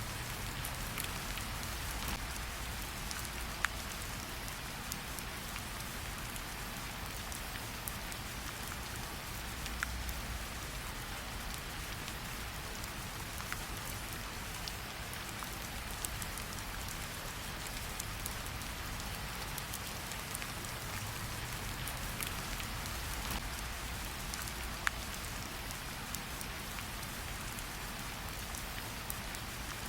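Steady rain falling on a surface, an even hiss, mixed with a campfire that gives a sharp crackling pop every few seconds.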